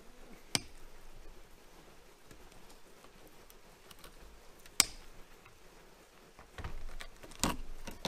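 Diagonal cutters snipping through wires of the tailgate wiring harness: two sharp snips about four seconds apart. Near the end, rustling and scraping as the bundle of wires is handled.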